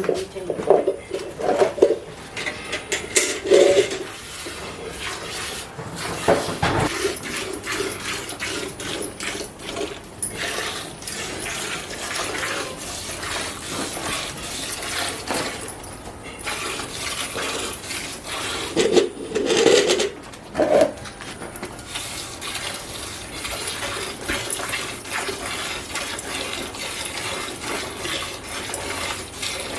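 Hand-milking a buffalo: a fast, continuous run of milk squirts hissing into a pail. A few louder low sounds break in near the start and about two-thirds of the way through.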